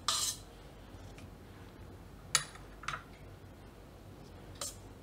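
Metal spoon scraping and clinking against a fluted glass serving bowl as syrup-soaked kala jamun are set into it: a short scrape at the start, then a few sharp clinks, the loudest about halfway through.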